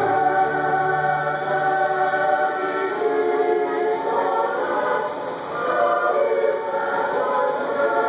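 Choral music, a choir singing long held chords, from the show's soundtrack.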